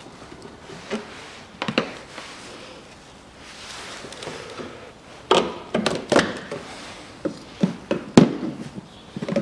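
Clunks and knocks of a plastic and rubber air intake duct being worked loose and pulled out of an engine bay. The knocks are irregular: a couple early on, a quick cluster past the middle, and the loudest single knock near the end.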